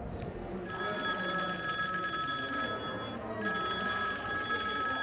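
Old desk telephone's bell ringing for an incoming call: two rings of about two seconds each, with a short pause between them.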